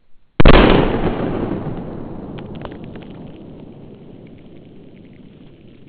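A single shot from a Winchester Apex .50 Magnum in-line black-powder muzzleloader, about half a second in, followed by a long echo that fades away over several seconds, with faint scattered ticks as it dies down.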